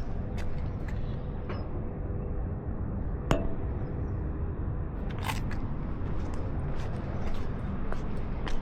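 Honda CBR650R's inline-four engine running at steady revs on the move, under a steady rush of road and wind noise. Scattered sharp clicks cut through it, the loudest about three seconds in.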